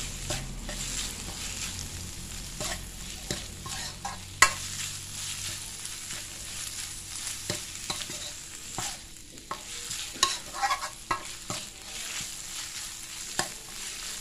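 Ground pork and chili paste sizzling in a hot wok as they are stir-fried, with a metal spatula scraping and clicking against the wok throughout. One sharp knock of the spatula on the wok comes about four and a half seconds in.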